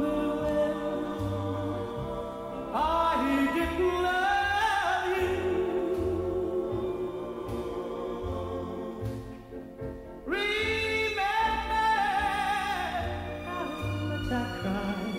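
Background music: a slow song with long, wavering melody notes over a steady bass line, dipping briefly near ten seconds before the melody comes back in.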